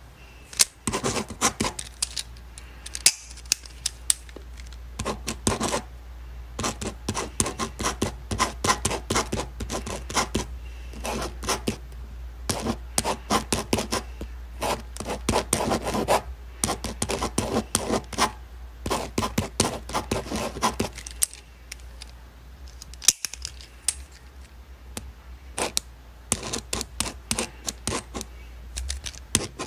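Ballpoint pen writing on paper: quick scratching strokes and small ticks in bursts, with short pauses between them.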